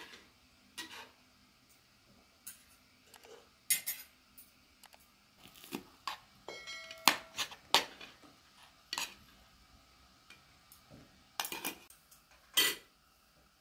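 Spoons clinking and scraping against metal plates and trays as people eat, in irregular strokes, with one clink that rings on briefly about seven seconds in.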